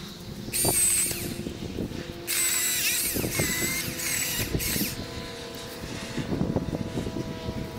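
Milwaukee M18 Fuel battery chainsaw running with a high electric whine in two bursts: a short one about half a second in, then a longer run of about two and a half seconds starting about two seconds in.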